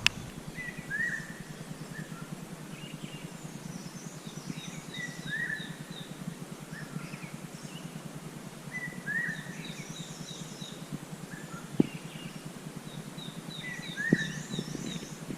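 Several wild birds calling: one call near 2 kHz repeats about every four seconds, and a quick series of six to eight short high notes comes three times, among other scattered chirps. Two sharp knocks sound late on.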